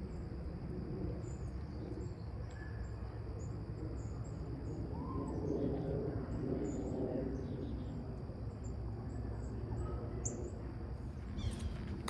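Small birds chirping in short, high, repeated notes over steady low outdoor noise, with a few footsteps on the trail near the end.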